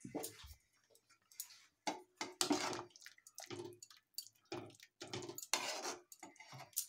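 A spoon stirring a thick yogurt-and-gram-flour curry in a metal kadhai: irregular wet scrapes and clinks of the spoon against the pan, about one or two strokes a second.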